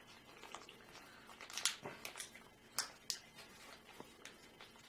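Origami paper being folded by hand, rustling and crinkling as flaps are brought together along existing creases, with several short crackles.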